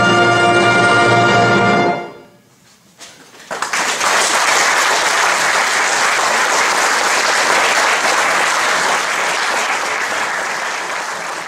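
A concert wind band holds its final chord and cuts off about two seconds in. After a short pause a few claps start, and the audience breaks into steady applause that slowly fades near the end.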